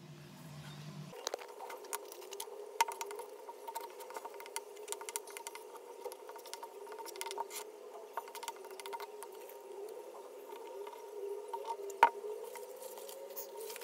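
Small handling and tool noises from hand work on the case materials: a run of light clicks and taps over a steady scratchy rustle, with one sharper tap about twelve seconds in.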